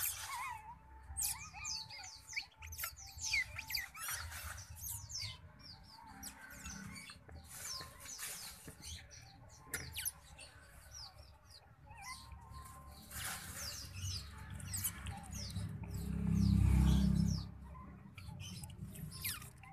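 Newborn otter pups squeaking: rapid, high-pitched chirps, many in quick succession, as they crawl about at their mother's belly to nurse. A brief low rumble swells and fades about sixteen seconds in.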